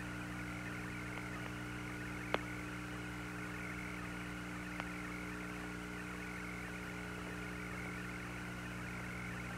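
Steady hiss and hum of the Apollo 17 lunar-surface radio link in a gap between transmissions, broken by two brief sharp clicks about two and a half and five seconds in.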